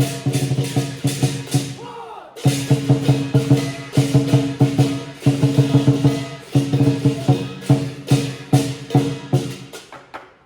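Lion dance percussion ensemble, Chinese drum with gong and cymbals, playing a fast rhythm of rapid strikes over a ringing tone. It breaks briefly a few times and stops near the end.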